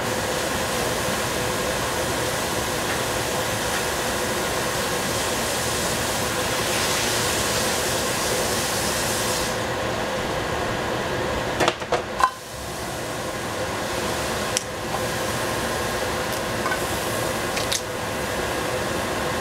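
Steady whirr of a kitchen extractor fan with a hum of a few fixed tones, and a high hiss that stops about halfway through. A short cluster of knocks and clatters comes near the middle, and single knocks follow later.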